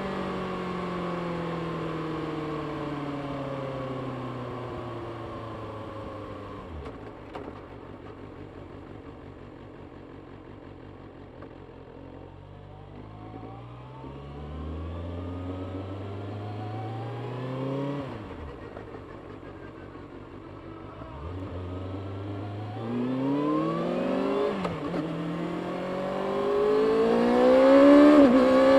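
Kawasaki Ninja ZX-6R's 636 cc inline-four on its stock exhaust: engine speed falls away as the bike slows, then it accelerates hard through the gears, revs climbing and dropping at each upshift, loudest near the end.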